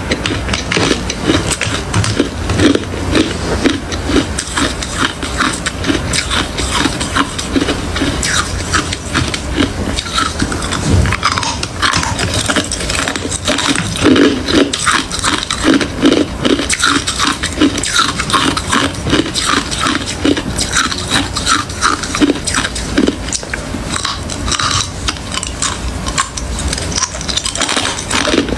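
Close-miked chewing of hard and crushed ice, a continuous run of loud crunches and cracks.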